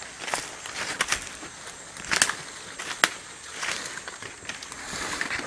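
Footsteps crunching through leaf litter and undergrowth, with irregular sharp snaps, the loudest about two and three seconds in.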